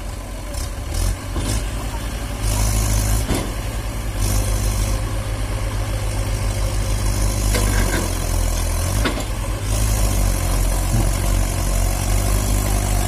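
Diesel engine of a JCB 3DX backhoe loader running and revving up about two and a half seconds in, holding the higher revs as the hydraulic backhoe arm pulls on a loaded tractor trolley.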